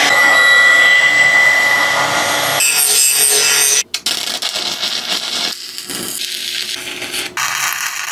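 Handheld electric power tool running with a steady high whine while sanding Bondo filler off a weld. After an abrupt change a little over two seconds in, stick-welding arcs crackle in short clips, cut off sharply twice.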